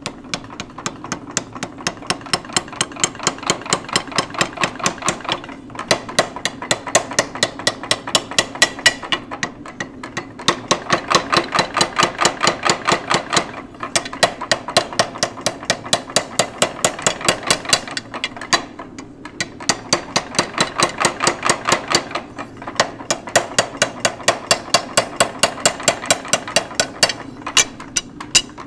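A 50-pound Little Giant power hammer pounding hot steel in rapid, even blows, about five a second, as the bar is drawn out. The blows come in runs of a few seconds with several brief pauses, over a steady hum.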